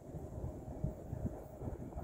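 Wind buffeting the microphone: an uneven low rumble that swells and drops in irregular gusts, with a faint steady hum underneath.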